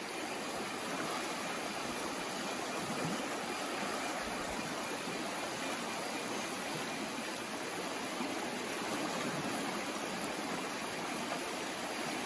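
Water of a shallow, rocky stream flowing, a steady rushing with no distinct splashes.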